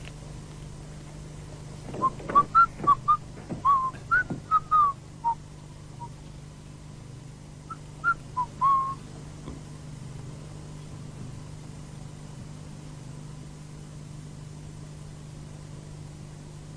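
Whistling: a quick run of short whistled notes with small pitch slides about two seconds in, then a shorter phrase around eight seconds, over a steady low hum.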